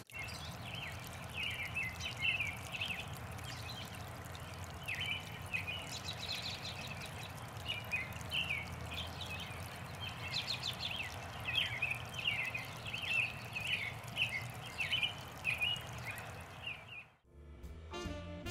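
Small songbirds chirping in quick repeated bursts over the steady trickle of water in a garden pond. Near the end it cuts off sharply and jazz music with saxophone begins.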